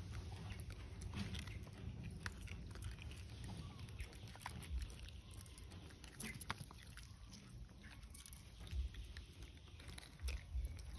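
Faint scattered clicks and rustles from long-tailed macaques moving about on a leaf-strewn concrete path, over a low rumble of wind on the microphone.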